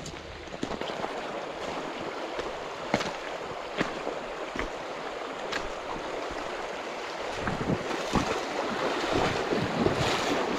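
Shallow creek water running over a gravel bed, a steady rushing that grows a little louder in the last few seconds, with a few sharp clicks scattered through it.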